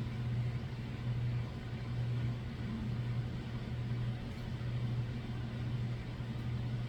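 Steady low hum of background room noise with faint hiss.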